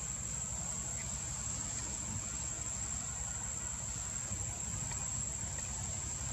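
Steady, high-pitched drone of insects in the trees, unbroken throughout, over a low rumble.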